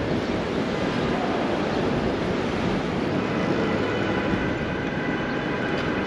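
Steady busy city-street din of traffic and crowd noise blended together, with a faint high steady tone in the second half.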